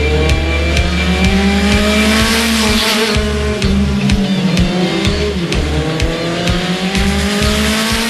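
Instrumental music track with a steady, pulsing bass beat, overlaid with race-car sound effects: engines revving and speeding past, their pitch gliding up and down again and again.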